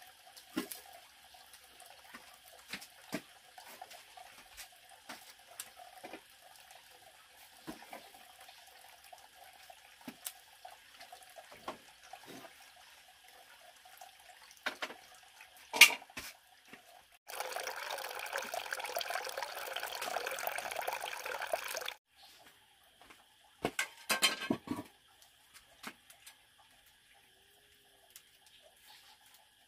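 Scattered small knocks and clicks of handling, a sharp knock, then water running in a steady rush for about five seconds a little past halfway. A shorter, broken splash of water follows a couple of seconds later.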